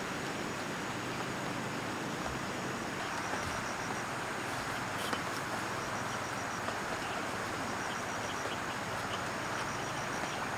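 Steady rush of a flowing river. Insects chirp in short rapid trills now and then.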